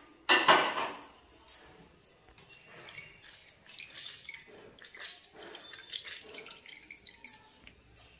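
Lemon juice dripping and splashing through a small metal strainer into a pot as a lemon half is squeezed by hand, in faint, irregular drips. There is a brief louder noise about half a second in.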